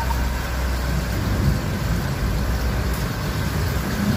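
A motor vehicle's engine running under a steady rushing noise, with a deep low rumble that eases about a second in.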